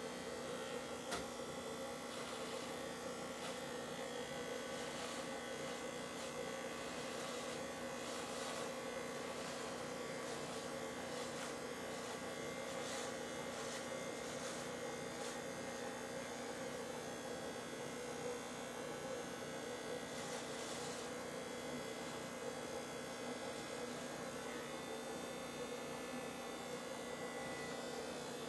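Corded electric hair clipper running steadily as it is drawn over the beard, neck and scalp, with a few faint brief crackles now and then.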